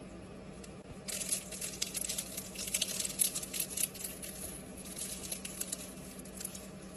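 Crisp, thin-layered baked pastry of a samsa crackling and crunching as it is torn apart by hand: a dense run of small crackles that peaks about two to three seconds in, then thins out to scattered crackles.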